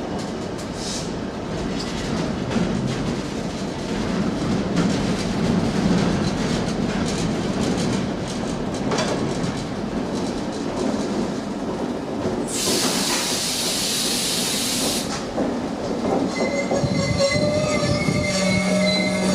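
Train running through the station, its wheels rumbling and clattering on the rails. About two-thirds of the way in, a loud hiss of air lasts about two and a half seconds. Steady tones begin near the end.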